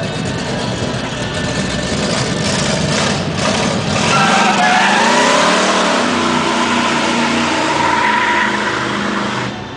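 Dodge Charger engine revving during a burnout, its pitch climbing and falling back about halfway through, over a steady hiss of spinning tyres.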